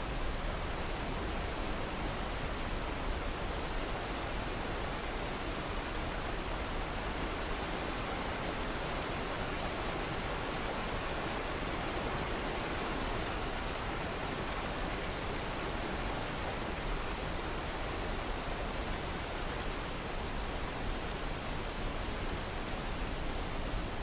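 Rushing white water of a mountain river tumbling over boulders below a cascade: a steady, even rush of water with no breaks.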